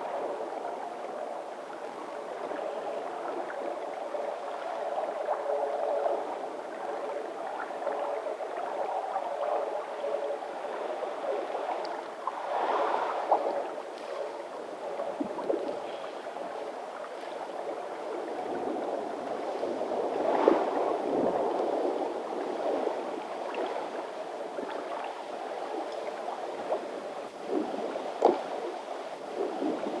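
Small creek gurgling steadily, swelling briefly a couple of times.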